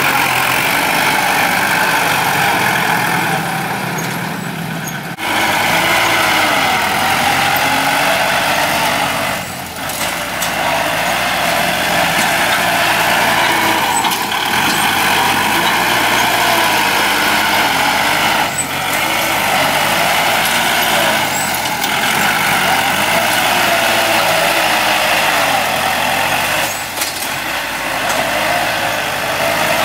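Kubota tractor's diesel engine working steadily under load as the tractor pushes soil with its front dozer blade. The engine runs continuously, with a few brief dips in level.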